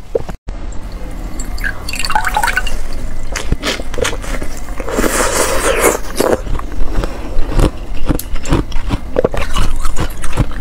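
Close-miked eating of slush ice from a frozen plastic water bottle: wet sucking and squishing with many crisp crunching clicks, and a longer slurp about five seconds in.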